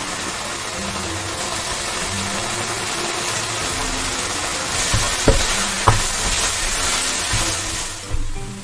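Food sizzling in hot oil, a steady hiss, with two sharp clicks a little past the middle. The sizzle drops away near the end.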